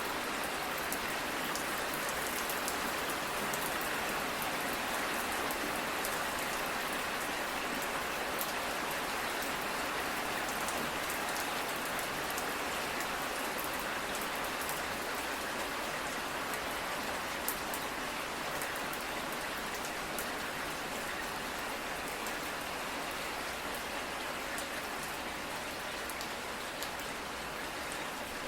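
Steady rain falling, an even hiss with many fine drop ticks on a surface, unchanging throughout.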